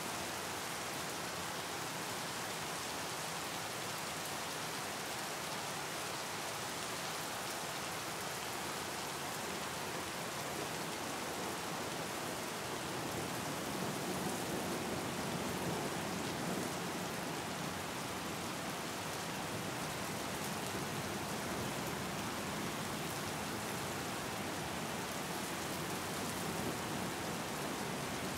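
Steady rain falling on open water: a dense, even hiss of many drops striking the surface, a little louder around the middle.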